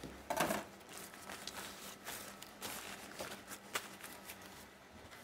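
Scattered light clicks and knocks of utensils and trays being handled on stainless steel, with a short rustle about half a second in.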